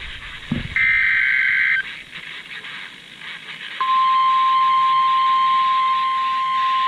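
NOAA Weather Radio emergency alert received over a weather radio, with radio hiss. About a second in comes a second-long burst of the warbling SAME digital header data tones. About four seconds in, the steady single-pitched 1050 Hz warning alarm tone starts and holds; it is the signal that a warning message, here a severe thunderstorm warning, is about to be read.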